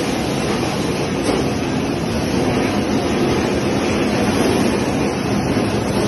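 Pineapple washing machine running: a steady rush of water in the washing tank and from the spray bars, mixed with the even hum of the conveyor's geared motor.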